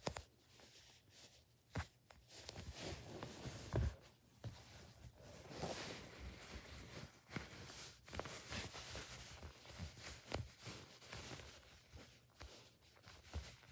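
Faint handling of foam squishy toys: fingers squeezing and rubbing the soft foam, with scattered light clicks and rustles against bedding and a louder knock about four seconds in.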